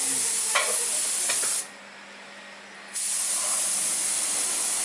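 Compressed-air paint spray gun hissing steadily. It cuts off sharply about a second and a half in and starts again just over a second later, as the trigger is released and pulled again.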